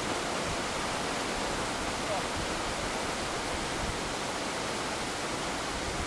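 Steady rushing of a wide, fast-flowing river running high after a large flash flood.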